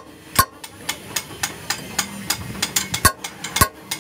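Hand hammer striking a steel drift punch held in an excavator's front-axle steering knuckle. A quick run of metal-on-metal blows, with a few much louder ringing strikes among them.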